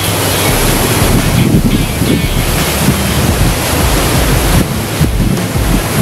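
Sea surf washing on a rocky shore, heard through steady wind buffeting the microphone.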